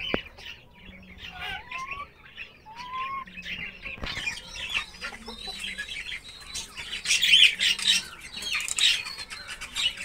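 Chickens in a coop: hens give soft low clucks and two short rising calls, then a busy mass of high, rapid chirping builds from about four seconds in and is loudest near the end.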